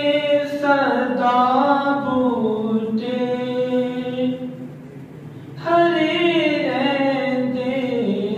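A man singing a naat unaccompanied into a microphone, in long drawn-out, ornamented phrases. About five seconds in, his voice fades for a breath, then a new phrase begins.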